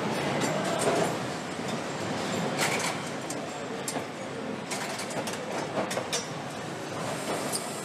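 Engine assembly-line noise: a steady machinery din with frequent short metallic clicks and clatter of parts being handled and fitted.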